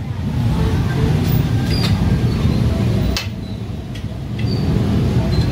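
A steady low rumble of street-stall noise, easing off for a moment a little past halfway, with two sharp metallic clicks, one just under two seconds in and one about three seconds in.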